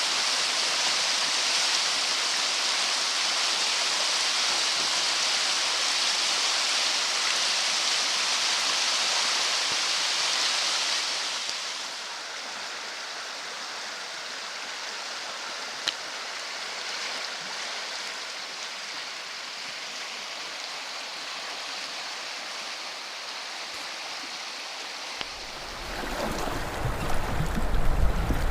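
Rushing water of small river rapids, a steady hiss that gets quieter about twelve seconds in. Near the end a low rumbling joins it.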